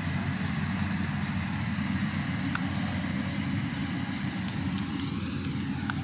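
Yanmar combine harvester's engine running steadily while harvesting rice, a low, even rumble.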